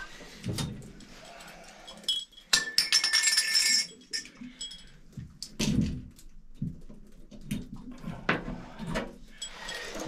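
Metal hand tools clinking and rattling, with a burst of metallic jingling about two and a half seconds in, then scattered clicks and knocks while working at a shower valve.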